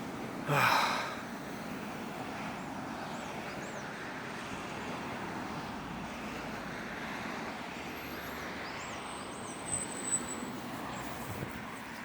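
Steady road traffic noise from cars passing on a busy road, with one brief louder sound about half a second in.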